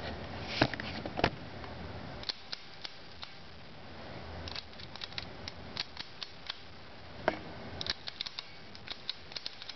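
Rotary selector switches on a home-built transformer voltage regulator being turned through their positions: a string of sharp clicks, a few spaced ones at first, then quick runs of several clicks a second in the middle and near the end.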